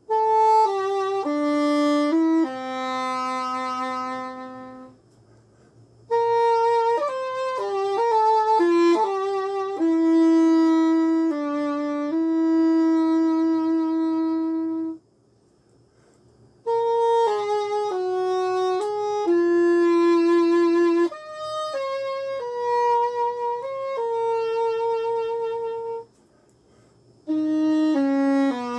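Solo English horn playing a slow, unaccompanied melody in phrases of held and stepping notes, some with vibrato, with three short silent pauses between phrases.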